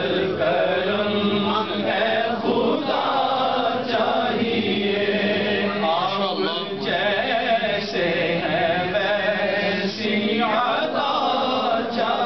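A man reciting an Urdu naat, singing unaccompanied in a slow, drawn-out chant whose long held notes bend up and down. A steady low hum of other voices runs beneath it.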